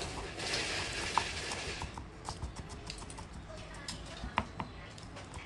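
Kitchen knife mincing garlic on a round wooden chopping board: irregular knocks of the blade striking the wood, with a rasping noise for about a second and a half near the start.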